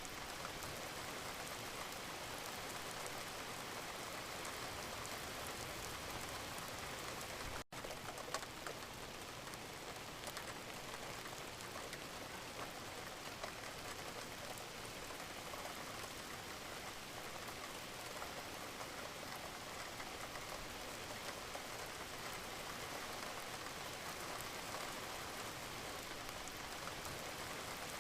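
Steady rain falling, an even hiss with scattered drop ticks. About eight seconds in it cuts out for a split second.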